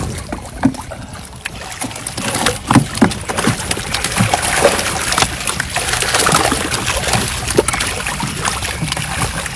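Fish trapped in a net thrash at the water's surface, making a dense run of splashes and slaps that grows louder after the first couple of seconds.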